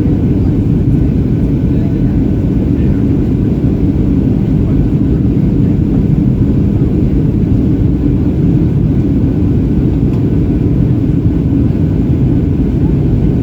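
Steady cabin noise inside a Boeing 737-800 in flight: a constant low rush of airflow and CFM56-7B engine noise. It stays even throughout, with no changes in pitch or level.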